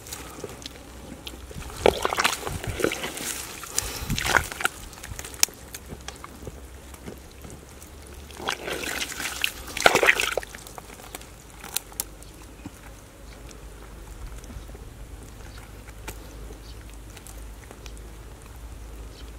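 A hand and arm groping in a muddy, water-filled hole: water sloshing and wet mud squelching in two spells, starting about two seconds in and again about nine seconds in, with quieter stirring between.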